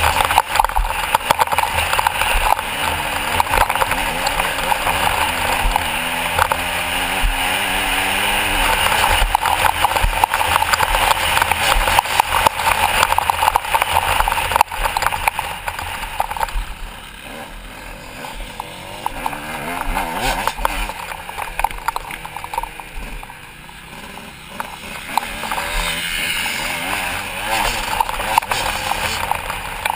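Motocross bike engine heard from the rider's helmet, revving up and down as it is ridden around the track. The revs and loudness drop a little past halfway, then pick up again near the end.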